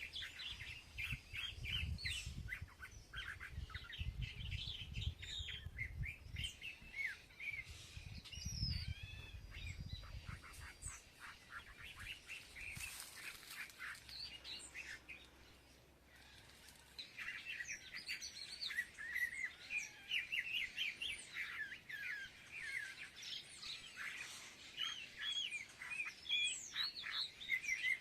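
Many small birds chirping and twittering at once, a dense overlapping chatter that thins out for a few seconds in the middle and then picks up again. A low rumble sits under the first ten seconds or so.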